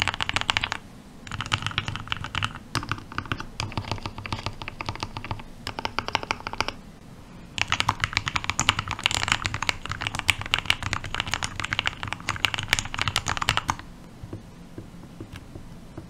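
Typing on a custom Libra Mini 40% Alice-layout mechanical keyboard with lubed 62 g TTC switches, PBT DSA keycaps, gasket mount and an acrylic case: fast runs of poppy keystrokes in three stretches with short pauses, stopping about fourteen seconds in.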